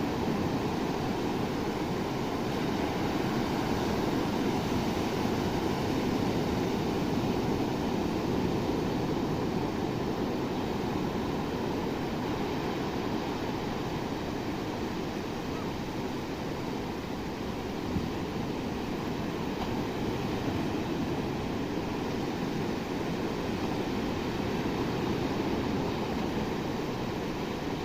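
Sea surf washing onto a beach: a continuous rush of breaking waves that swells and eases slowly.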